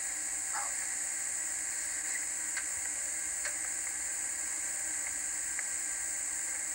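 Steady hiss of old home-camcorder tape audio, with a few faint clicks about halfway through.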